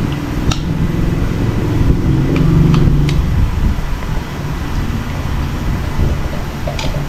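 A low rumble that swells from about one to three seconds in, with a few light clicks of spoons or forks against plates during a meal.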